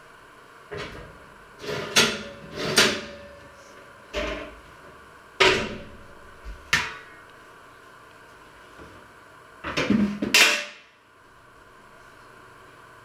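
Kitchen clatter: a string of separate knocks and metallic clanks as a metal baking tray and other kitchenware are handled and set down, with the loudest cluster about ten seconds in, then only a faint steady background.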